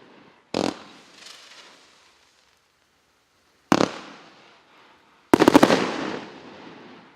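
Р8180 "Moroz i Solntse" 52-shot firework cake firing. There is a single shot about half a second in and another near four seconds, then a rapid fan volley of about half a dozen shots that dies away near the end: the cake's last shots.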